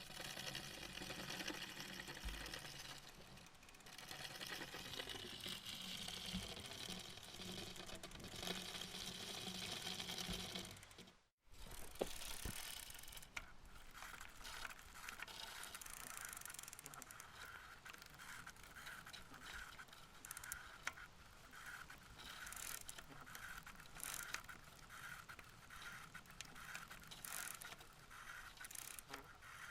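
Bicycle mechanism sounds: dense ratcheting and ticking, like a freewheel clicking with chain and gear noise. After a short silent break, a second bicycle clip has a regular click about once or twice a second.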